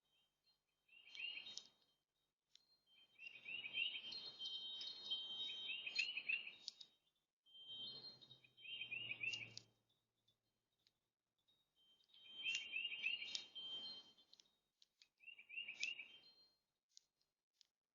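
Small songbirds calling in short bursts of quick repeated notes, about five bursts with quiet gaps between them.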